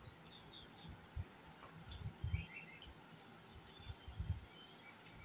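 Faint bird chirps, short quick runs of a few notes twice, with soft low thuds from eating at the table in between.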